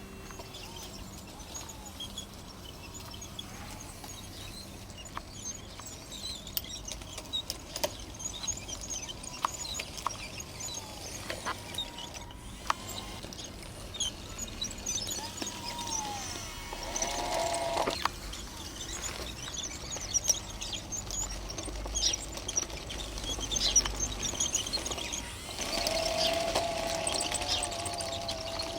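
Small electric drive of a 3D printed RC bulldozer working in dirt: a faint motor whine comes and goes, about halfway through and again near the end, over scattered clicking and crunching from the tracks and soil. Birds chirp faintly throughout.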